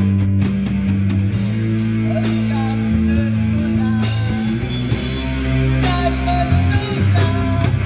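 Rock band playing live: electric guitars and bass guitar through amplifiers over a drum kit, with regular drum and cymbal hits.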